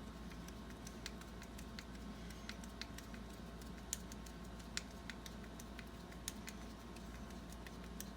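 Irregular light metallic clicks and ticks from the small parts of an antique Russwin mortise lock being worked by hand after lubrication, with a few sharper clicks around the middle.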